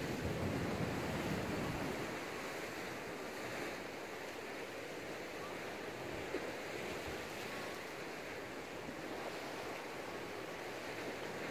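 Sea waves washing against a rocky shore, with a heavier low surge in the first two seconds and then a steadier wash, and some wind on the microphone.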